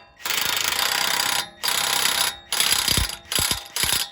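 Cordless impact wrench hammering a 32 mm nut down in about five bursts, the first over a second long and the rest shorter, with brief pauses between.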